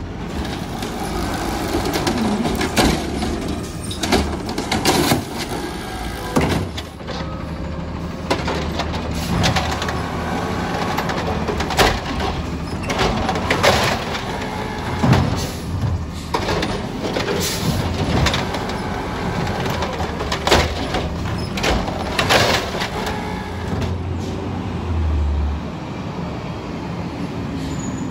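Automated side-loader garbage truck at work: its engine runs steadily while the mechanical arm lifts and dumps curbside carts, with a dozen or so sharp clanks and bangs as carts and arm knock together.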